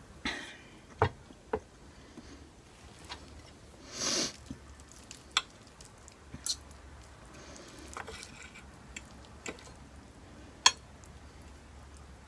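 Eating sounds up close: soft, wet chewing and squishing of food, broken by a dozen or so sharp cutlery clicks and a brief noisy rustle about four seconds in.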